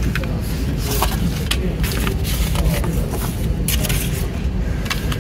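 Plastic CD jewel case being handled and opened, giving a series of sharp clicks and taps over a steady low background rumble.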